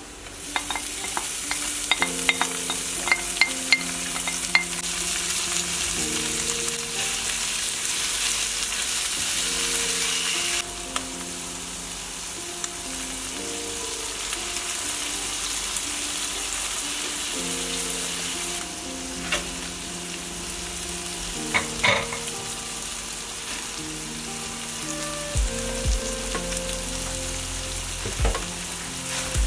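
Onions and shredded cooked chicken sizzling in oil in a frying pan, stirred with a spatula. A quick run of clicks comes in the first few seconds, with a few louder knocks of the spatula against the pan later on.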